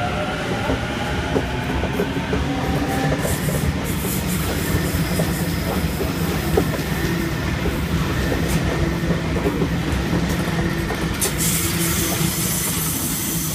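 Sydney Trains Waratah double-deck electric train pulling out of the platform. Its wheels rumble steadily on the rails as the carriages pass, with a steady hum from the traction equipment.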